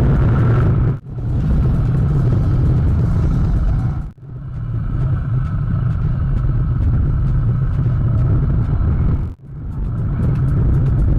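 Motorbike on the move: the engine runs under loud, low wind rumble on the microphone. The sound is cut into four clips that break off abruptly about one, four and nine seconds in.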